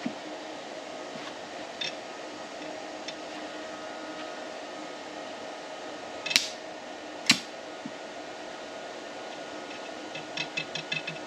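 Steady fan hum, broken by two sharp snaps about six and seven seconds in. A quick rhythmic tapping starts near the end.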